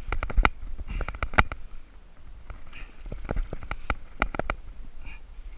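Irregular clusters of sharp clicks and knocks over a low rumble as a rod and reel are worked against a plastic kayak hull during a fight with a big fish.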